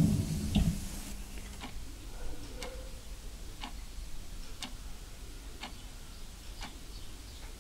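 Regular, faint ticking, about one tick a second.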